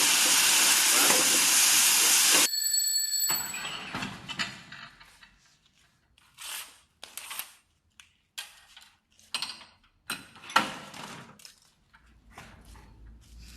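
Ice cream cone baking machine hissing loudly; the hiss cuts off abruptly about two and a half seconds in. Scattered sharp clicks and light knocks follow.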